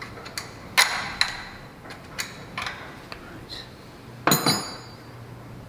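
Metal hand tools clinking and knocking on metal: a series of sharp metallic taps at irregular intervals, the loudest a short cluster with a brief ring about four seconds in.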